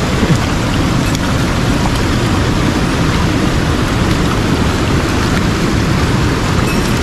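Steady rush of a mountain headwater stream's water running over rocks.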